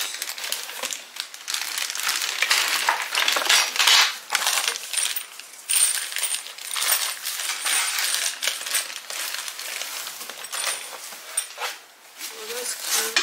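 Plastic bags crinkling and rustling while small wooden and plastic toy-workbench parts rattle and clatter against each other and the cardboard box as they are unpacked.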